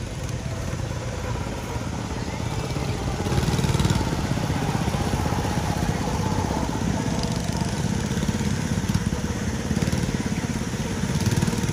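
Go-kart engines running as karts drive round the track, a steady buzzing drone that gets louder about four seconds in as a kart passes close by.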